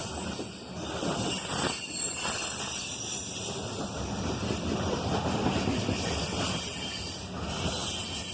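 Loaded grain train's freight cars rolling past with a steady rumble and hiss of wheels on rail, with thin high-pitched wheel squeals over the top.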